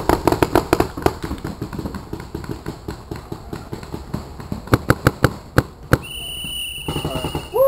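Paintball markers firing: a quick string of pops at the start, scattered pops after, then three or four louder shots about five seconds in. A steady high tone starts about six seconds in.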